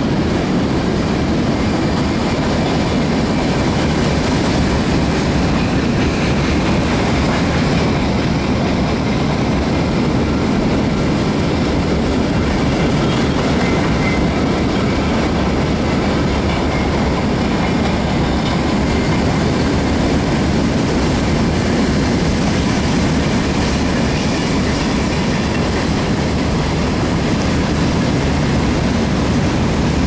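Steady low rumble of a moving vehicle, unbroken and even in level throughout.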